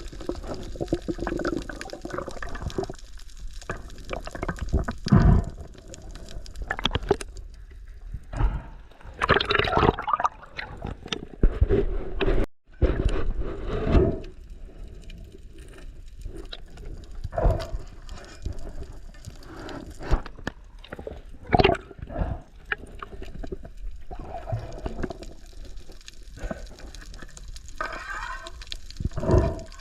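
Sea water sloshing and gurgling, broken by irregular loud knocks and thumps.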